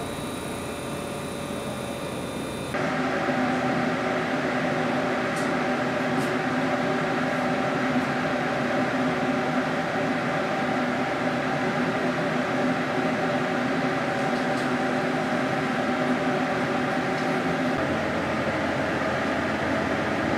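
Steady hum of an HB-E300 hybrid railcar heard from inside the passenger cabin: several held tones over an even noise, with no rise or fall in pitch. About three seconds in the sound changes suddenly and gets louder, and one of the tones drops out near the end.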